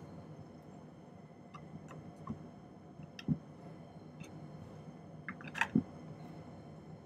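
Steel tweezers ticking and tapping against a soldering board while placing small pieces of solder: several light ticks spread out, the loudest couple near the end, over a steady low hum.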